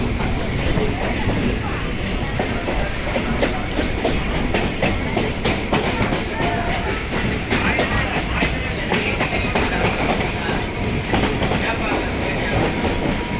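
EMU electric suburban train running at speed, heard from on board: a steady rumble of running noise with the wheels clicking over rail joints.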